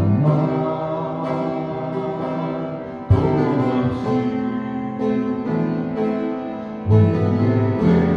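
Upright piano playing a slow Korean praise-song (찬양) instrumental in full sustained chords. Loud bass chords are struck about three seconds in and again near seven seconds.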